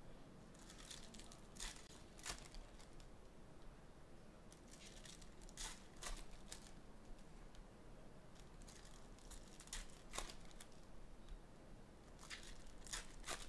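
Faint, scattered crinkling of shiny Goodwin Champions trading-card pack wrappers and the rustle of cards being handled and sorted, a dozen or so short rustles with small gaps between them.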